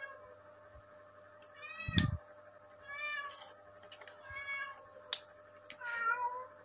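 A cat meowing over and over, about five short, high meows, one every second or so, with a few faint clicks from wires being handled.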